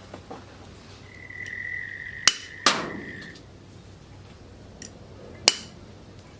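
Three sharp metallic knocks, two close together about two seconds in and one near the end, with a steady high whine lasting a couple of seconds around the first two.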